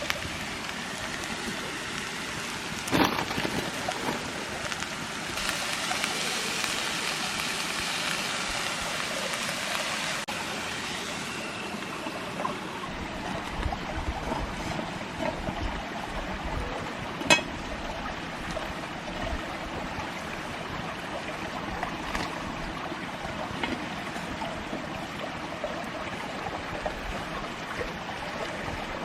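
Steady rushing of running water, like a stream, with a few sharp snaps, the loudest a little past the middle, and a stretch of louder hissing between about five and eleven seconds in.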